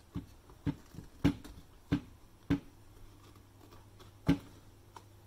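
Screwdriver prying the plastic cover off a Nescafe Dolce Gusto Lumio coffee machine: six sharp plastic clicks and knocks, irregularly spaced, the last after a pause of nearly two seconds.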